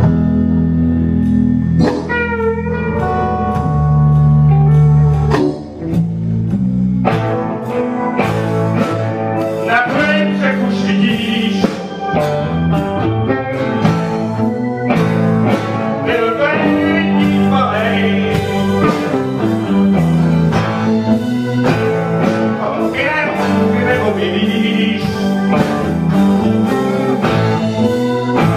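Live blues band playing: electric guitars over electric bass and a drum kit, with a steady beat.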